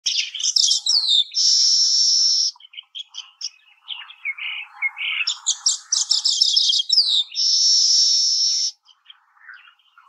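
Baya weaver song: bursts of rapid high chattering and ticking notes, each run ending in a long buzzy wheeze. This happens twice, then the song fades to scattered faint notes near the end.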